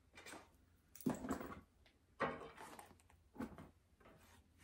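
Faint handling noises of small purse accessories, a wallet and pouches, being picked up and set down on a table: a few soft rustles and light knocks about a second apart.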